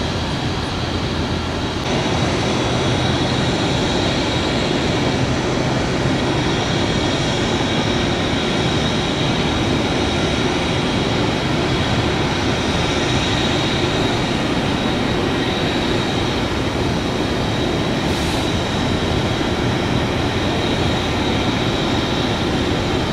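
Jet engines of an Airbus A320-family airliner on the runway, a steady roar with no break.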